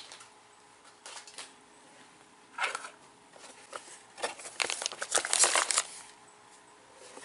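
Crinkling and rustling of snack wrappers and packing paper being rummaged through in a cardboard box. It comes in several short bursts, and the longest and loudest stretch of crackling is about five seconds in.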